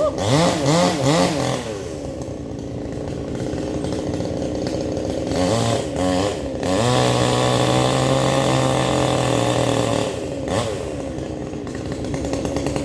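Chainsaw engine blipped up and down several times, then held at high revs for about three seconds before dropping back to a lower, steady run.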